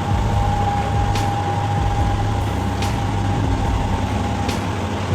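Heavy truck engine running steadily: a constant low rumble with a thin, steady whine above it.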